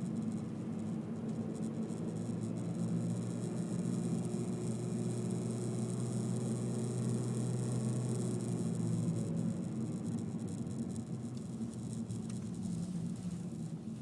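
Honda Civic 1.8 i-VTEC engine and tyre noise heard inside the car's cabin while driving: a steady low engine drone under road hiss, a little quieter in the last few seconds.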